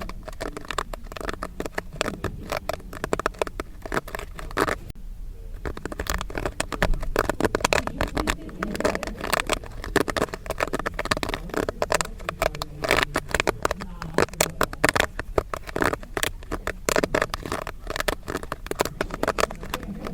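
Popcorn kernels popping in quick, irregular succession, a dense crackle of sharp pops, with a brief lull about five seconds in.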